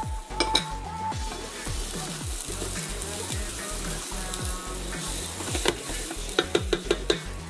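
Chopped onion, garlic and celery sizzling in oil in a pot while being stirred with a silicone spatula, with a few sharp clicks of the spatula against the pot near the end. Background music with a steady low beat runs underneath.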